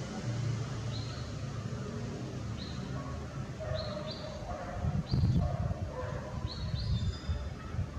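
Small birds giving short high chirps, one every second or so, over a steady low background rumble.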